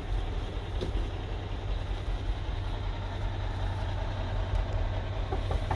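Peterbilt 567 dump truck's diesel engine idling, a steady low rumble heard from inside the cab.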